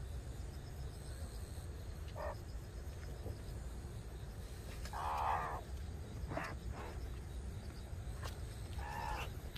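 Meerkats giving a handful of short calls, the longest about half a second in the middle, over a steady low outdoor rumble.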